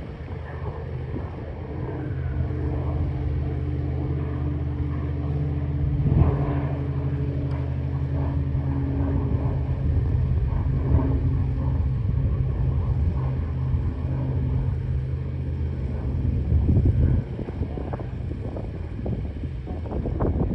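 Pilatus PC-12 NG's single PT6A turboprop and propeller droning steadily as it climbs out after takeoff, a low hum with steady tones. The tones fade out near the end, leaving a rougher rumble.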